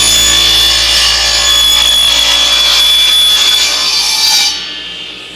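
Power woodworking tool cutting a slot in wood for a drawer bottom: a loud cutting noise over a steady high whine. About four and a half seconds in the cut ends and the motor winds down.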